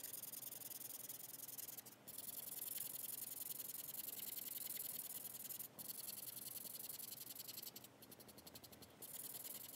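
Felt-tip marker scratching across paper in rapid back-and-forth strokes, colouring in a square, with a few brief pauses about 2 s in, near 6 s and around 8 s.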